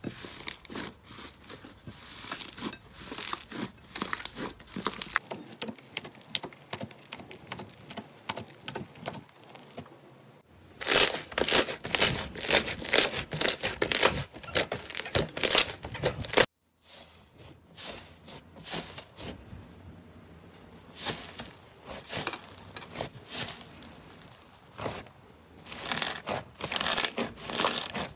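Hands kneading, squeezing and stretching slime, giving a dense run of small crackles, pops and tearing sounds. The sound changes abruptly a few times as clips of different slimes follow one another; it is loudest from about a third of the way in to just past halfway, then drops out briefly and builds again near the end.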